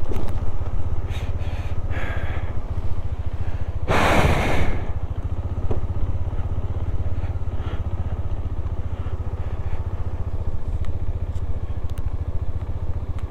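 Bajaj Dominar 400's single-cylinder engine running at low speed as the motorcycle picks its way over loose rock, with a short burst of rushing noise about four seconds in.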